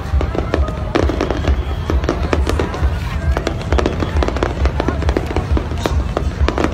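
Fireworks display going off: many sharp bangs and crackles in quick succession over a constant low rumble.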